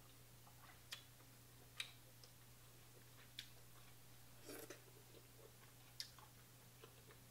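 Faint eating sounds from someone eating a seafood boil: a handful of brief sharp clicks and smacks, a few seconds apart, over near silence with a low steady hum.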